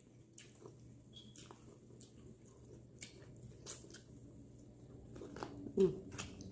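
Quiet close-up eating sounds: biting and chewing Hot Cheetos-crusted frog legs, with scattered crackly mouth clicks.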